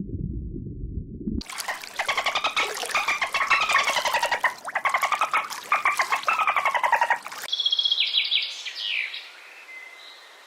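Low frog croaking for about the first second and a half, cut off sharply. A harsh, rapidly pulsed bird squawking follows for about six seconds, rising and falling in pitch. A few short, high bird calls come near the end.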